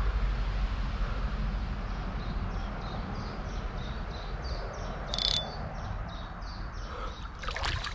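A short, high chirping call repeated evenly about three times a second, from a couple of seconds in until near the end, over a steady low outdoor rumble. A brief sharp sound cuts in about five seconds in.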